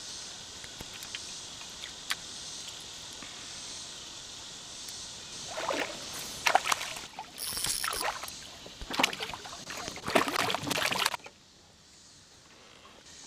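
Steady outdoor hiss with a few light clicks, then, about five and a half seconds in, several seconds of loud, irregular water splashing and sloshing beside the boat, which cuts off abruptly near the end.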